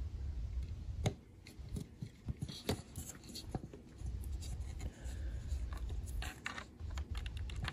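Handling noise of a USB cable and its plug being brought to a laptop's USB port: scattered light clicks, taps and scrapes over a low rumble.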